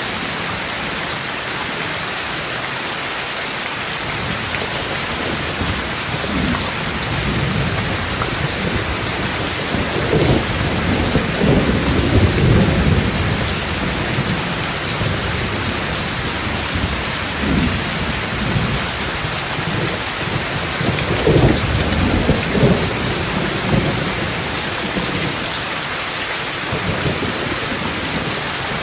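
Steady heavy rain hissing, with rolling thunder rumbling low in two long swells: one peaking a little under halfway through, the other about three quarters of the way in.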